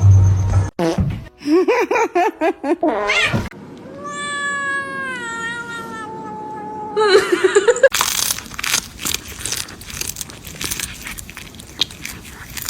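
A cat meowing and yowling: a few wavering calls, then one long call of about three seconds that slowly falls in pitch. After that comes a stretch of scratchy, clicking noise.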